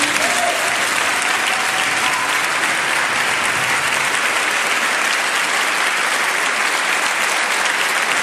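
Large group of people clapping together: a dense, steady round of applause right after a choral song has ended.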